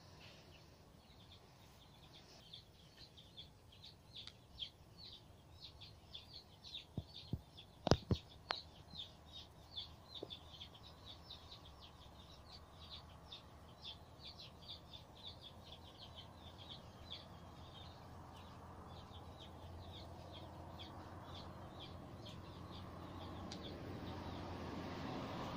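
Faint small-bird chirping, short high chirps repeated about twice a second. A single sharp knock comes about eight seconds in, and a low rushing noise slowly grows louder toward the end.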